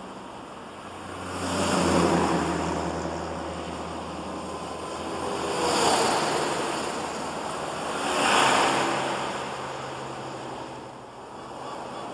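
Ambient electronic soundscape: three slow swells of surf-like noise rise and fall over a low, steady synth drone.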